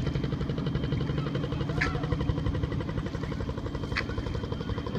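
Motorboat engine running steadily with a rapid, even pulsing beat. A sharp click sounds about every two seconds.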